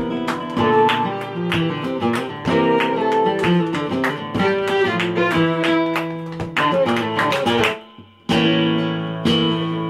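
Flamenco bulerías on nylon-string guitar with a fiddle, over sharp palmas hand-clapping on the beats. About eight seconds in the music stops dead for a moment, then comes back in on a loud accented strike.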